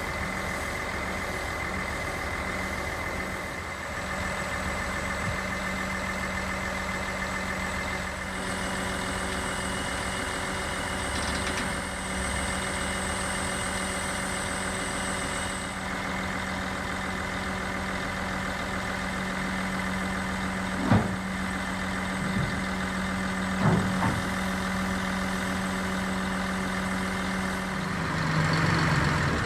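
Diesel engine of a Mercedes-Benz Actros 4144 concrete pump truck running at a steady idle. A few short knocks come about two-thirds of the way through, and the engine speed dips and then rises near the end.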